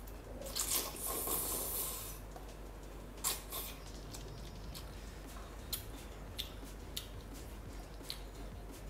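A person slurping spicy glass noodles for about a second and a half near the start, then chewing, with scattered small wet mouth clicks.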